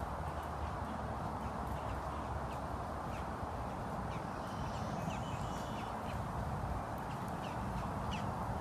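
Steady outdoor background noise with birds chirping and calling faintly over it.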